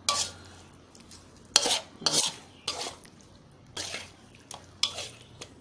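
A cooking utensil scraping and knocking against a pot as chicken pieces are stirred in massaman curry paste, in separate strokes about every half second to a second.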